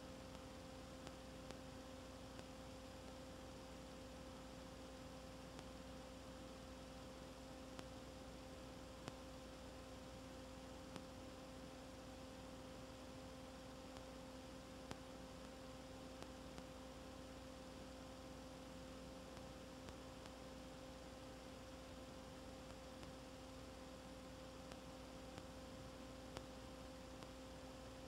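Near silence: a steady low electrical hum over faint hiss, with a few faint ticks scattered through.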